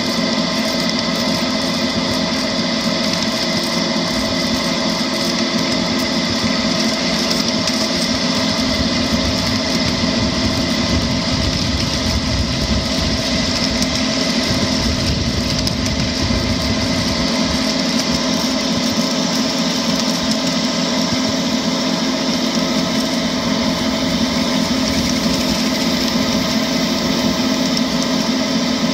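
Ride-on miniature model of a Class 52 'Western' diesel locomotive running along the track, giving a steady, even-pitched engine drone, with a deeper rumble swelling for a few seconds in the middle.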